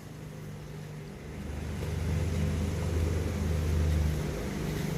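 Car engine running, growing louder from about a second and a half in and easing slightly near the end.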